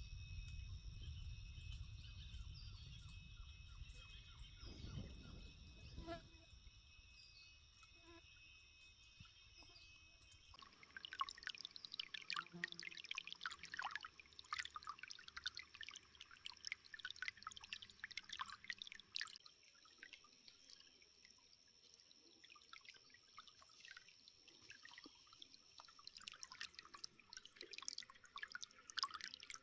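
Small water spring trickling and dripping, irregular and faint, starting abruptly about a third of the way in. Before that there is only a faint low rumble with steady high-pitched tones.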